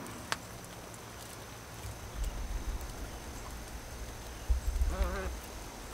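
A chicken gives one short call about five seconds in, over low rumbling on the microphone that comes and goes.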